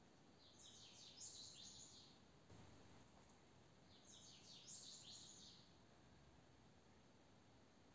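Faint bird chirping: two short bursts of quick, high twittering, about three seconds apart, over near silence.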